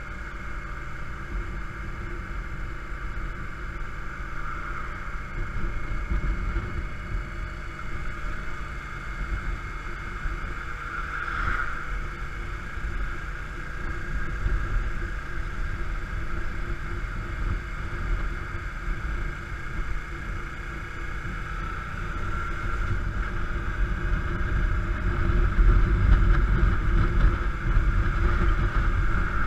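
Yamaha Drag Star V-twin cruiser motorcycle engine running steadily at road speed, heard from on the bike with wind noise over it. It gets louder over the last few seconds.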